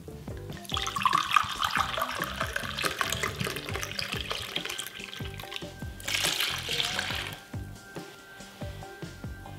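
White wine poured from a glass bottle into a ceramic cup, a steady splashing pour lasting about five seconds; then a second, shorter splash about six seconds in as the cupful is tipped into the liquid in the baking dish. Background music with a steady beat underneath.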